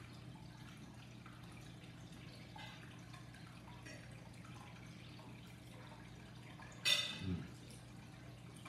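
Mukbang eating sounds: soft wet chewing and mouth smacks with small fork-on-plate clicks over a steady low hum, then one sharper, louder click near the end.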